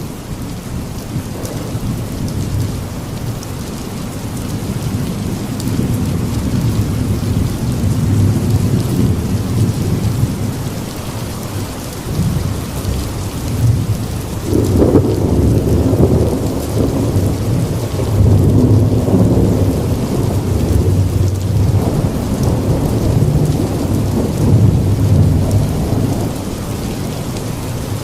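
Steady heavy rain with rolling thunder rumbling low underneath, swelling and fading. A louder thunder peal comes about halfway through.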